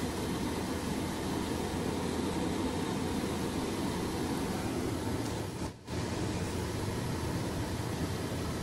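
Circle feeder running steadily as it discharges broken corn, the grain pouring from its outlet into a steel bowl, an even mechanical hum with hiss. The sound briefly drops out about six seconds in.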